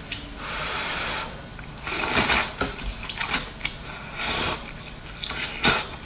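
Slurping soupy hot and sour noodles (suanlafen): several wet sucking pulls, the first about a second long, with a sharp wet smack near the end.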